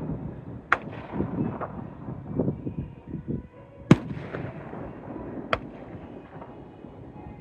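Aerial fireworks bursting: three sharp bangs, the loudest about four seconds in, with a low rumble of smaller bursts and echoes between them.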